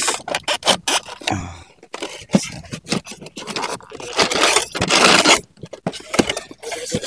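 Styrofoam packing box scraping and creaking against a toy RC excavator that is stuck tight in its moulded foam insert and being worked loose by hand, with irregular clicks and rustles.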